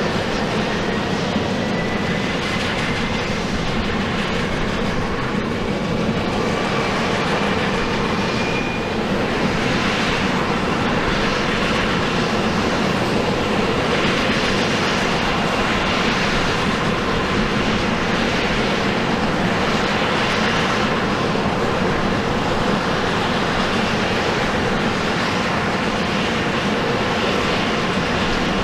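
USAF CV-22 Osprey's twin turboshaft engines running on the ground with the proprotors turning: a loud, steady rumble and whine. A thin whine rises in pitch over roughly the first nine seconds.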